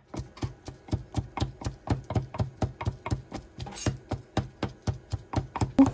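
Wooden pestle pounding roasted garlic cloves, skins on, in a wooden mortar: a rapid, even run of dull thuds, about five a second.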